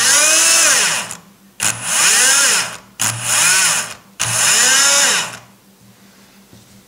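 Shimano Dendou-maru Beast Master 9000 electric fishing reel winding line in its programmed jigging pattern: four short motor runs of about a second each, each spinning up and then back down in pitch. The motor stops about five and a half seconds in.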